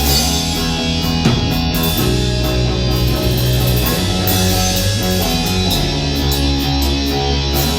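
A rock band playing live: distorted electric guitars over bass and a drum kit, in a heavy, metal-leaning style.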